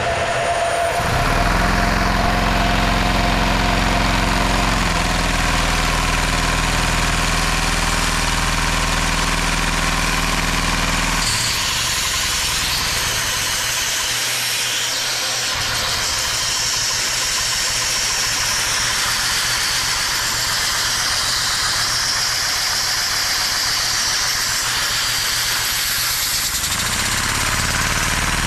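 LEGO two-cylinder vacuum engine running on suction from a vacuum cleaner: a steady rushing of air over a low, even mechanical hum. About a third of the way in the hum drops away, leaving mostly the rush of air. It comes back, rising in pitch, near the end.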